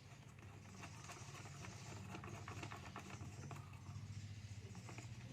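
Faint, irregular clicks and taps of plastic control knobs and volume potentiometers being pushed into place on an amplifier's front panel, over a steady low hum.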